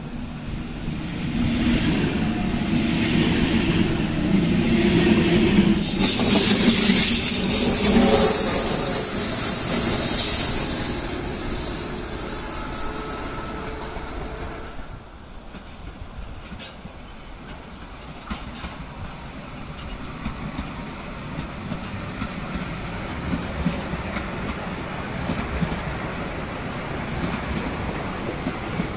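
Deutsche Bahn ICE high-speed train rolling in along the platform, with a rumble of wheels on rail and a high hiss that is loudest about six to eleven seconds in, then fading. After a break about fifteen seconds in, a quieter steady train rumble from further off builds slowly.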